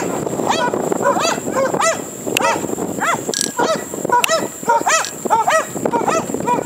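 English Springer Spaniels barking excitedly in quick, high yelping barks that rise and fall in pitch, about two or three a second without a break.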